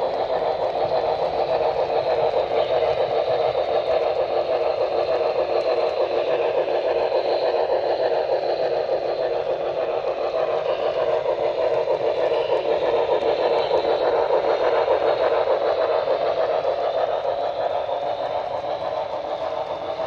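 Model steam locomotive, Santa Fe 3755, and its freight cars running along the layout's track: a steady rolling mechanical noise that eases off a little near the end as the train moves away.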